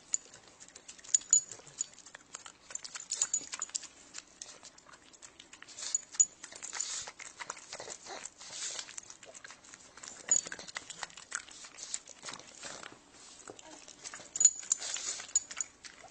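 Pug close to the microphone, licking and moving about, with many short clicks and noisy snuffles. Its metal collar tags jingle in several short bursts.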